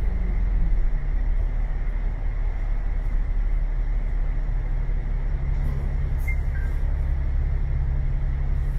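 Bus engine running with a steady low drone, its note shifting a little about halfway through.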